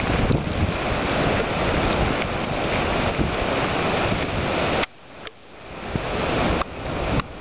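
Hurricane Sandy's gusty wind rushing and buffeting the microphone as a loud, steady noise. It drops away suddenly about five seconds in, builds back up over a couple of seconds, then dips again briefly near the end.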